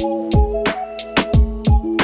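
Background music with a steady beat: a deep kick drum falling in pitch, sharp snare and hi-hat hits, and sustained synth notes.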